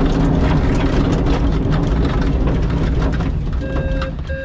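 Glider's landing wheel rolling over a grass airstrip just after touchdown: a loud steady rumble with many small knocks and rattles from the airframe, easing off after about three seconds. Near the end, two short beeps at one pitch.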